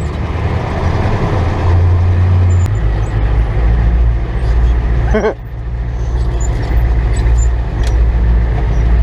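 Dump truck's diesel engine running, heard from inside the cab: a loud, low, steady drone whose pitch drops about a third of the way in, with a brief sharp break about five seconds in.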